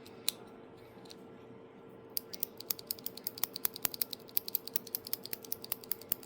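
3D-printed plastic clicker being clicked: one sharp click, then from about two seconds in a fast run of sharp ratchet-like clicks, several a second, until near the end.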